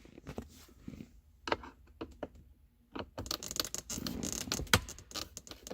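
Scattered clicks and scraping of a hand tool working screws out of a car's plastic center console, growing busier in the second half with one sharper click.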